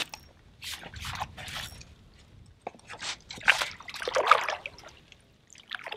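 Water splashing in irregular bursts as a hooked fish thrashes at the surface next to a landing net being worked in the water, the loudest splashes coming a little past the middle.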